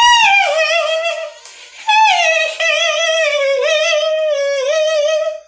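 A woman singing two long, high held notes, each sliding down from a higher pitch; the second, held with vibrato, lasts several seconds and cuts off near the end.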